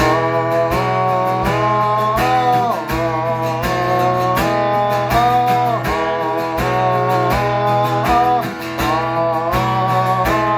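Worship band playing an instrumental interlude in E: a guitar melody of held, bending notes over a steady bass and drum beat.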